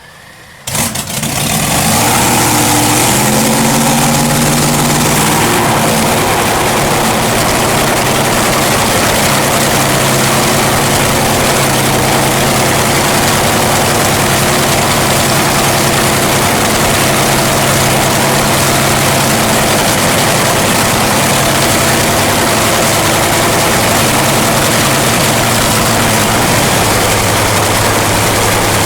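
A dragster's engine is fired up about a second in, then runs loudly at a steady idle, its pitch shifting a little in the first few seconds.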